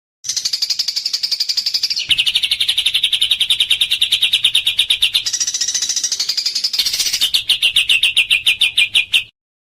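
Recorded songbird song: a loud, very rapid trill of evenly repeated notes. It switches abruptly between a higher and a lower pitch every two to three seconds, slows slightly near the end, then stops. It is a fast 'tembakan' (shot-like) phrase of the kind used as masteran to train competition songbirds.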